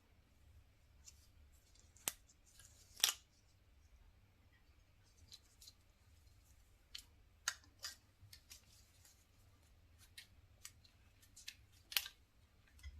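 Faint, irregular clicks and snaps of packaging and parts being handled, the two loudest about three seconds in and near the end.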